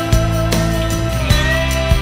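Background music with sustained tones and a steady beat.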